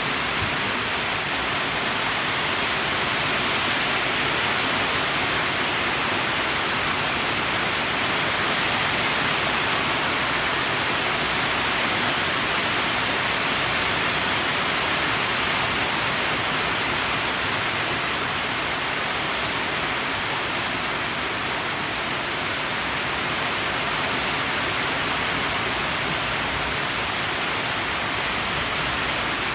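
Steady, even hiss of heavy rain, unchanging throughout.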